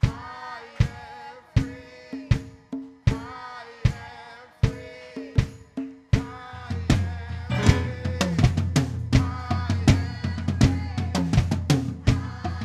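Live worship band led by a drum kit: a sparse beat of kick and snare hits under held notes, and about six seconds in a low bass part enters and the drumming becomes busier and fuller.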